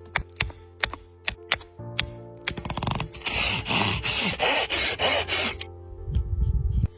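Background music with steady tones, over woodworking sounds: a run of sharp clicks and taps, then about three seconds in a dense scraping that lasts about two and a half seconds, like a tool working wood, and a short low rumble near the end.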